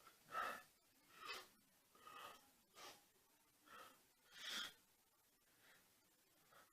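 A person breathing in short, faint, irregular breaths, about eight over five seconds.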